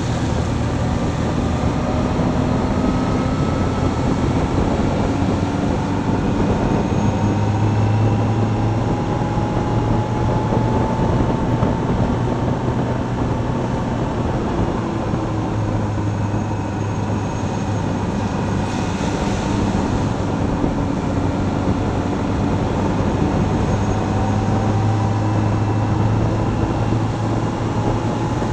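Motorcycle engine running on the move, with wind and tyre noise from a wet road. The engine note rises slowly as the bike picks up speed.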